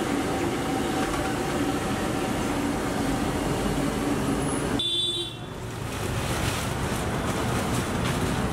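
Steady street traffic noise, with a sudden break about five seconds in and a short high beep, before the noise carries on.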